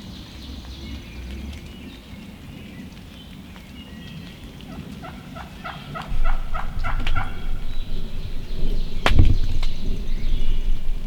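Turkey calling: a run of about nine evenly spaced, clipped yelping notes a few seconds in. A single sharp knock follows near the end.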